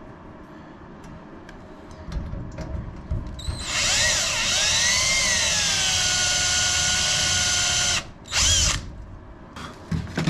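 Power drill drilling out a rivet head. A few knocks come first, then about four seconds of whine that dips in pitch as the bit bites and then runs steady, and stops suddenly. A short second burst and a few clicks follow.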